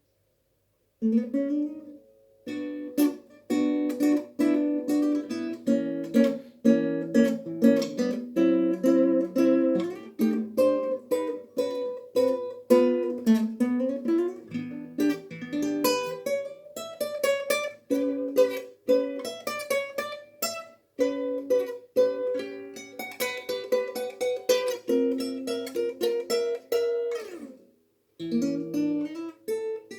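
Instrumental music: a guitar picking a quick run of single notes, starting about a second in and pausing briefly near the end.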